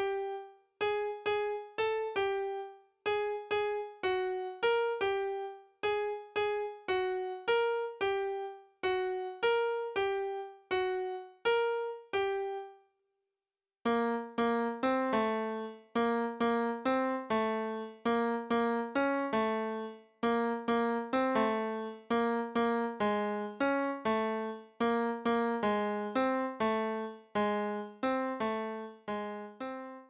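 Background piano music: a simple melody of single struck notes, about two a second. It stops for about a second near the middle, then resumes lower, with two lines of notes played together.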